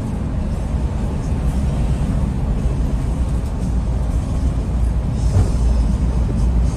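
Bus on the move: a loud, steady low rumble of engine and road with a hiss above it. It starts and cuts off abruptly.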